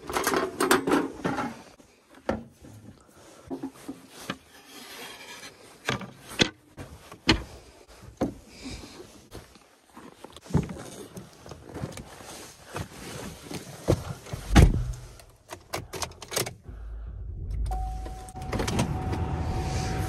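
Metal clanks and clicks of a Coleman propane camp stove being closed up, then scattered knocks and handling, and a loud thump about 14 seconds in. A couple of seconds later the Buick Enclave SUV's engine starts and runs with a steady low rumble, joined by a steady tone.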